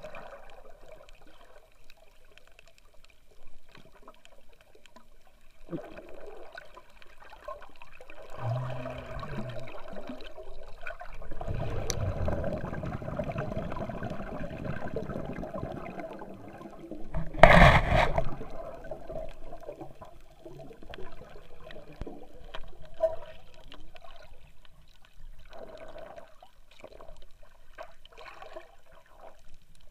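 Muffled underwater water noise picked up by an action camera held below the surface: gurgling and sloshing that swells for several seconds past the middle, with one short, loud rush of water about two-thirds of the way through.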